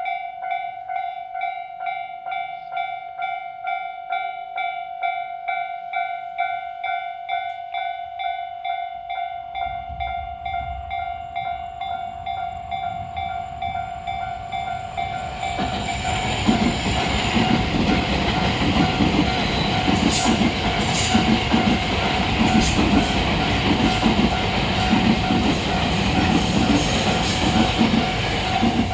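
Level crossing warning bell ringing in a steady, rapidly repeating ding. A Tobu Tojo Line train is heard approaching as a low rumble about ten seconds in and passes loudly from about fifteen seconds in, while the bell keeps ringing.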